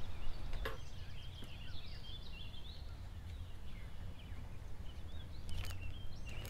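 Small birds chirping and singing, many short rising and falling calls, over a low steady rumble, with a sharp click under a second in and a few handling clicks near the end.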